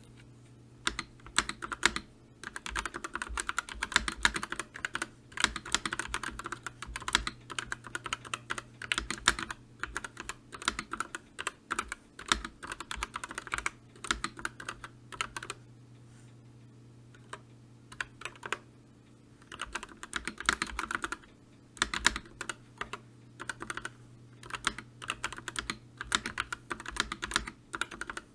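Typing on a computer keyboard: fast runs of key clicks that stop for a few seconds past the middle, then resume.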